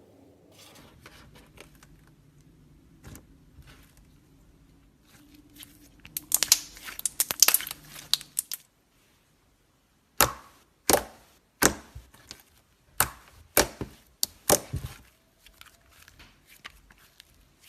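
Slime being pressed and stretched by hand, crackling and popping: scattered faint crackles, a dense burst of crackling about six seconds in, then after a brief gap a run of sharp, loud pops about a second apart, fading to light crackles near the end.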